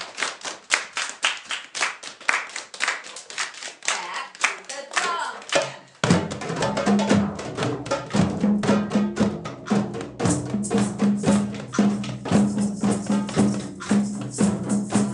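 A group clapping hands in rhythm, quick sharp claps. About six seconds in it changes abruptly to group hand drumming on djembes and frame drums, with a steady low note underneath.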